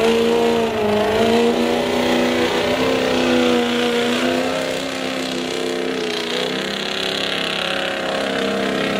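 Pickup truck engine running hard at high revs, its pitch held nearly level with small rises and dips, as it drags a weighted pulling sled down a truck-pull track.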